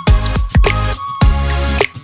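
Background music with a heavy beat: hip-hop-style track with deep bass drum hits about twice a second.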